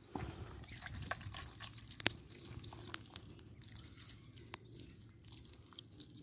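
Hands digging and squelching through wet, waterlogged mud, with scattered sharp wet clicks and drips; the sharpest one comes about two seconds in.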